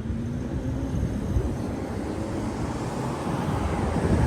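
Road traffic passing through the intersection: engine and tyre noise, swelling near the end as a vehicle goes by.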